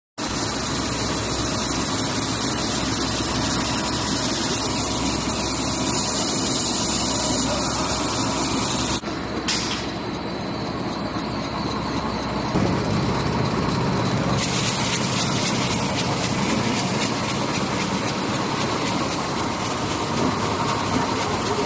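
Cassava-starch cat litter extruder production line running: a steady mechanical drone with hiss. The sound changes abruptly about nine seconds in and again about fourteen seconds in.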